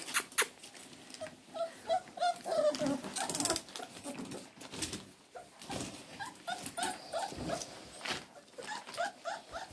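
Young beagle puppies whimpering, many short whining calls one after another, with a couple of sharp clicks right at the start.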